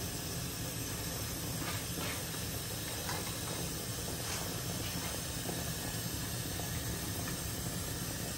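Steady hiss of a gas hob burner heating oil in a small frying pan, with a few faint ticks.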